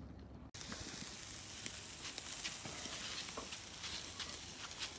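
Skewered pork barbecue sizzling over hot charcoal on a kettle grill, a steady hiss with scattered small pops. It begins after a brief cut-out about half a second in.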